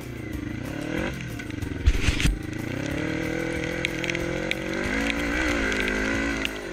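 Yamaha Raptor 350 quad with a swapped-in Honda CB500 engine, running under load, its pitch falling and rising with the throttle. There is a loud thump about two seconds in, and the engine holds higher revs near the end.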